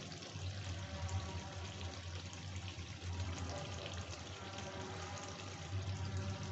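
Chicken in onion-masala gravy sizzling and bubbling steadily in a kadhai over the flame, with a low steady hum underneath.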